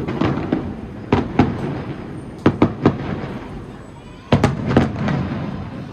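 Aerial firework shells bursting: sharp booms with a rolling echo, coming in three clusters of two or three bangs each.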